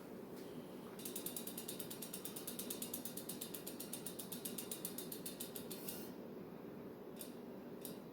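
Bicycle hub freewheel pawls clicking rapidly as the wheel spins, about ten clicks a second, stopping about six seconds in. Two single clicks follow near the end.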